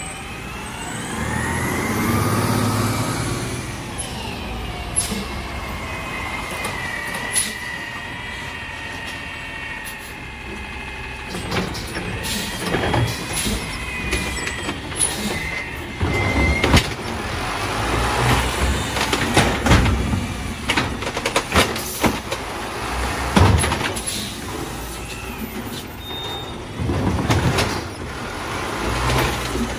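Autocar ACX garbage truck with an Amrep automated side loader: its natural-gas engine revs with rising and falling pitch as it pulls up, then from about twelve seconds in the loader arm works with repeated sharp knocks and bangs as it grabs and dumps carts.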